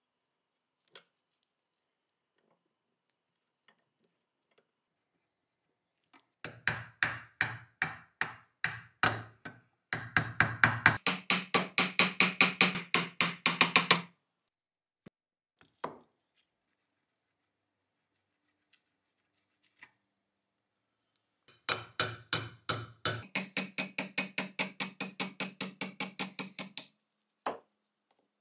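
Two runs of hammer taps on steel, each opening with slower blows that quicken to about five a second, with a ringing tone under the blows. The taps are driving apart the rust-seized parts of a Colt Vest Pocket pistol.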